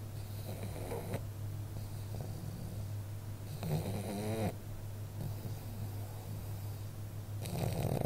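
Pug snoring in its sleep: three drawn-out snores about four seconds apart, the last the loudest.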